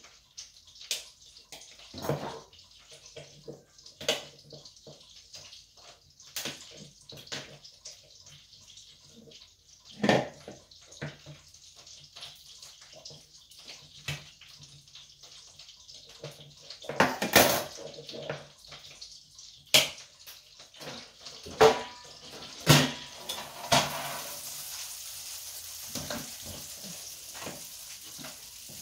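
Kitchen work sounds: scattered knocks and clinks of dishes and utensils over a steady hiss, which grows louder and brighter for the last few seconds.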